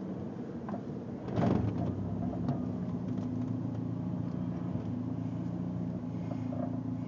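Turbocharged Dodge Neon four-cylinder engine running steadily while driving, heard from inside the cabin, with a brief loud rush of noise about a second and a half in.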